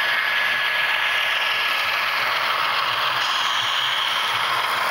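HO scale model train rolling past close by: locomotives and double-stack intermodal cars running on the track with a steady whirring, rattling rush of wheels and gearing.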